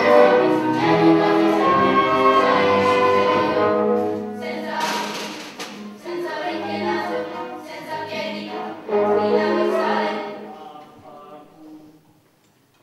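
Children's orchestra playing, with voices singing, and a brief crash about five seconds in; the music dies away after about ten seconds.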